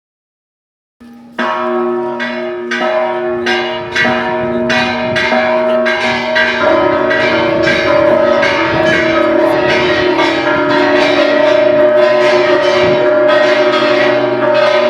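Church bells in a parish bell tower ringing. Single strikes begin about a second and a half in, roughly two a second, each ringing on. From about six seconds in more bells join, and the strikes run together into a dense, overlapping peal.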